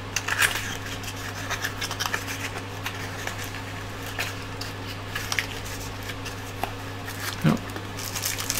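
Hands opening a small cardboard battery box and handling its plastic packet: scattered light rubs, scrapes and clicks over a steady low hum.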